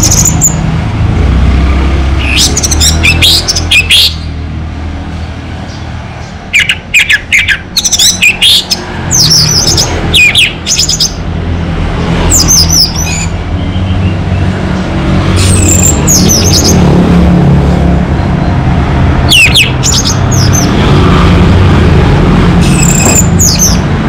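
Orange-headed thrush singing in short, varied phrases of whistled and chattering notes, about seven phrases with pauses of a second or more between them. A steady low rumble of street traffic runs underneath.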